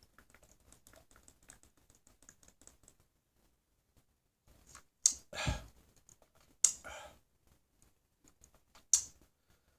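A person sipping beer: faint scattered crackling clicks for the first three seconds, then three short, sharp sips about five, six and a half and nine seconds in, the first the loudest and deepest.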